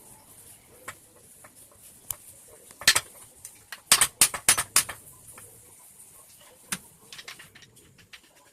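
Sharp metallic clicks and clinks, like tools or small metal parts being handled and knocked together: a double strike about three seconds in, then a quick run of about six clinks a second later, with scattered single taps.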